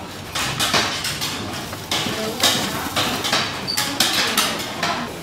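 Cast-iron bubble waffle (egg waffle) iron clanking as it is closed and handled: a quick run of sharp metal knocks and clacks.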